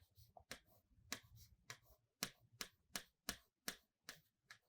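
Faint, irregular clicks and taps of a pen writing, about two a second.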